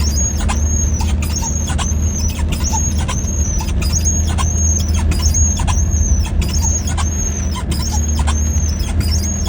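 A car's steady low running drone with a short, high squeak repeating about twice a second.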